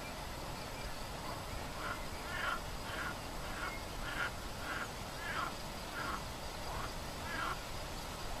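A duck quacking: a run of about ten short quacks, roughly two a second, starting about two seconds in, over a steady outdoor hiss.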